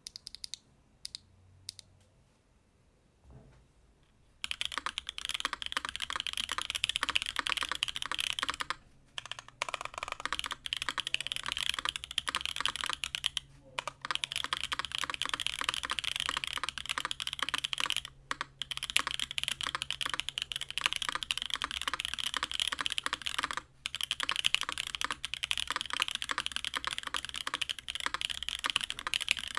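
Typing on a CannonKeys Onyx mechanical keyboard with Soju switches on an aluminium plate, GMK keycaps and no case foam: a dense, continuous stream of key clacks. A few single key presses come first, then steady typing starts about four seconds in, broken by a few short pauses.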